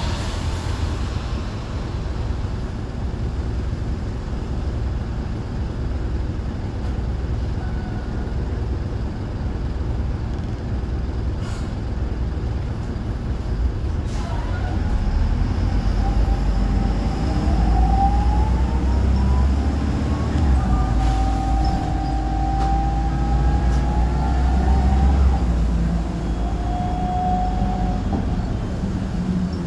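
Optare Solo M920 single-decker bus's diesel engine idling, heard from inside the cabin, with a couple of sharp clicks. About halfway through, the engine note rises as the bus pulls away, and a whine rises in pitch, then holds steady as it gets under way.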